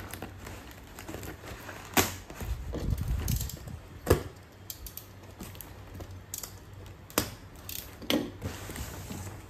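A cardboard parcel wrapped in clear packing tape being cut open with a box cutter and handled on a wooden table: crinkling and slitting of the tape and cardboard, with several sharp knocks as the box is tipped and set down, the loudest about two seconds in and about four seconds in.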